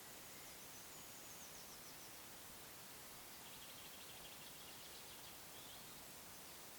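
Faint songbird trills over a steady hiss: a high trill in the first couple of seconds, then a longer run of quick repeated notes from about halfway through.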